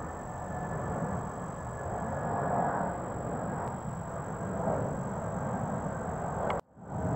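Steady low rumbling outdoor background noise that swells and fades slowly, with a faint high-pitched whine held throughout; a click and a brief drop-out near the end.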